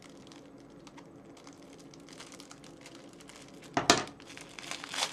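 Thin cellophane packaging crinkling faintly as it is picked at, then a sharp loud crackle about four seconds in as the bag is torn open, with smaller crackles after it.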